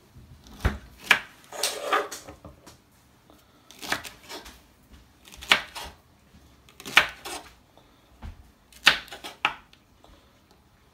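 Kitchen knife slicing okra on a wooden chopping board, the blade knocking on the board in sharp single strikes at an irregular pace, about one every one to two seconds.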